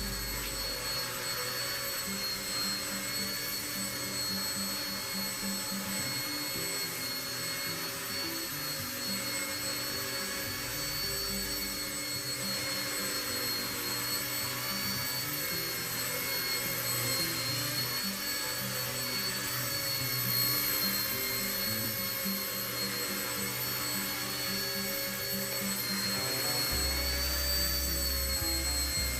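Blade 70 S ultra-micro helicopter's small brushed electric motors and rotors whining steadily in a hover, the high whine wavering slightly in pitch with throttle.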